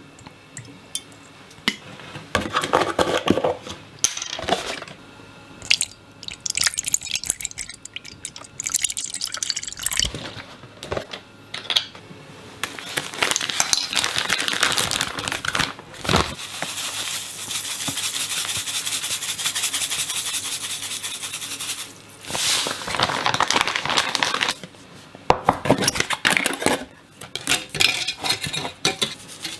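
Rustling and crinkling of a plastic packet being torn open and handled, with a long continuous stretch of crinkling in the middle; light handling knocks of kitchen items around it, and near the end a can of almond flour being opened.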